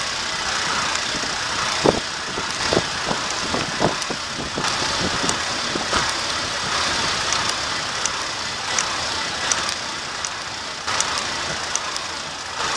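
A car running steadily, with irregular sharp clicks and knocks, most of them between about two and four seconds in.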